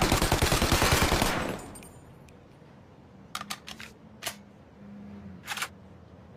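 Tommy gun (Thompson submachine gun) firing a fully automatic burst at about ten shots a second, stopping a little over a second in and dying away. A few short, sharp clicks follow.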